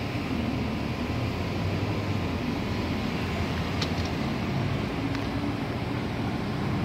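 Steady low rumble of street traffic, a motor vehicle engine running below.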